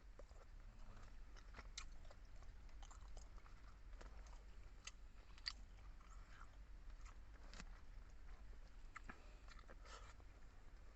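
Faint close-up chewing and mouth sounds of a person eating, with scattered short clicks and a sharper click about five and a half seconds in, over a steady low hum.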